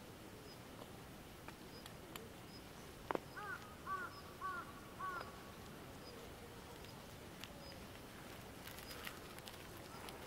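A crow cawing four times in quick succession, about half a second apart, a few seconds in, just after a single sharp click.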